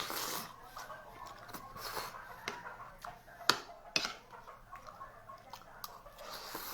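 A person eating ampalaya with rice close to the microphone: irregular chewing and lip smacking, with two sharp clicks about three and a half and four seconds in.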